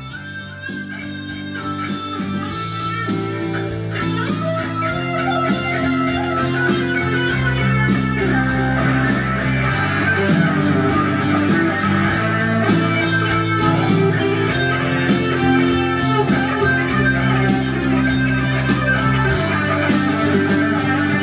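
Gold-top Les Paul-style electric guitar played through an amplifier and mixing board, a melodic line over a steady beat and held bass notes, growing louder over the first few seconds.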